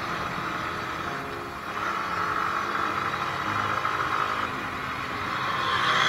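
Yamaha motorcycle engine running steadily at cruising speed, with road and wind noise.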